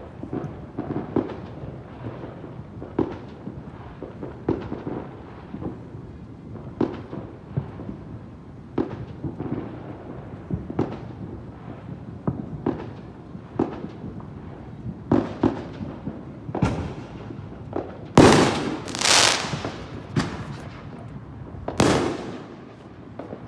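Fireworks going off: a string of sharp bangs every second or two, with a cluster of louder, longer blasts about three-quarters of the way through.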